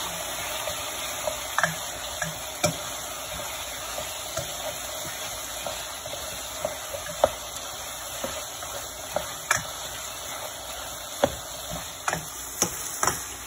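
Chicken curry frying in its pot: a steady sizzling hiss with scattered sharp pops and clicks. The chicken is cooking in oil and spices before any water is added.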